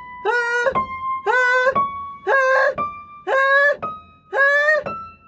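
Singing exercise: a voice sings five short 'ah' notes, about one a second, each a step higher than the last and scooping up slightly at the start. Between the notes a thin held instrument tone, likely keyboard, sounds and steps up as well.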